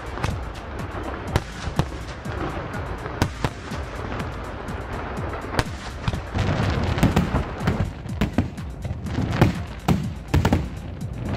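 Fireworks going off: sharp bangs and cracks at irregular intervals, growing denser with deep booms from about six seconds in, over music.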